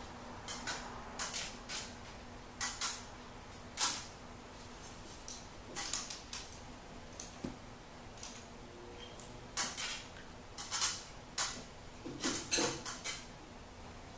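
Irregular metallic clinks and clanks of hand tools and parts being handled at a vehicle's engine, with a faint steady hum that fades about halfway through.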